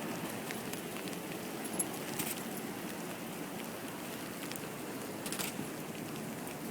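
Freezing rain pattering steadily on snow and ice, with a few faint clicks.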